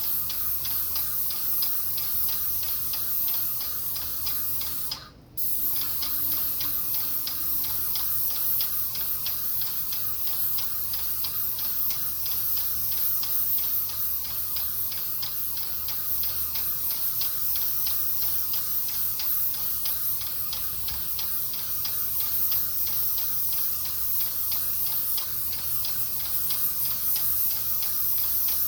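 Graco 395 Hi-Boy airless paint sprayer spraying paint with a steady hiss, over fast, even ticking and a low hum from the pump. The hiss breaks off for a moment about five seconds in.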